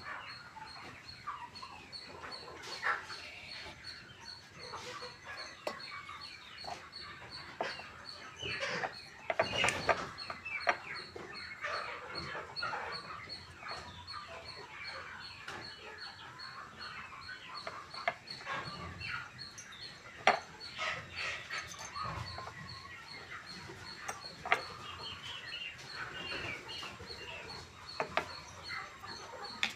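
Chickens clucking and chirping, with short calls coming one after another and a few louder squawks among them.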